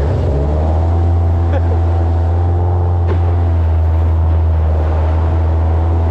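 Toyota 5K four-cylinder engine running at a steady speed, with a loud, low exhaust hum.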